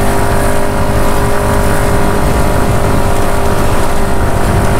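Kymco Like 150i scooter's 150 cc air-cooled single-cylinder four-stroke engine pulling steadily up a hill, its note holding an even pitch, over a heavy low rush of wind on the microphone.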